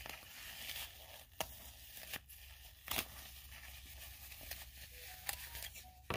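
Small plastic toy packaging being handled and torn open: soft crinkling with a few short sharp crackles.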